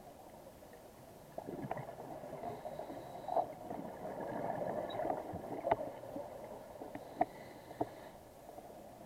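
Underwater sound of a scuba diver's exhaled bubbles gurgling through the regulator, with a few sharp clicks scattered through it.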